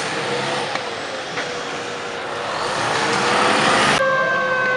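Fire truck's engine pulling out and accelerating, growing louder over the last second and a half. About four seconds in the sound breaks off sharply and a siren's steady tone starts.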